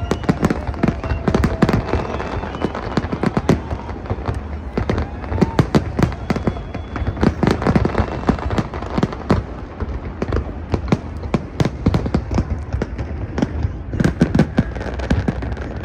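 Large fireworks display: shells bursting in quick, irregular succession with crackling, going on continuously without a break.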